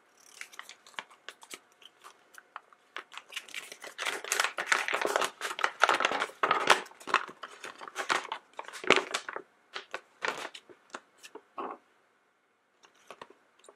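Paper crinkling and rustling as a folded collector's flyer is unfolded and handled, a dense run of crackles over several seconds in the middle that thins out toward the end.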